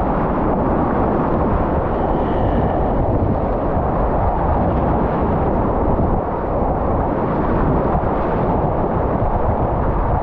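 Whitewater rapid at high flow, heard from a kayak in the middle of it: a loud, steady rush of churning water that does not let up.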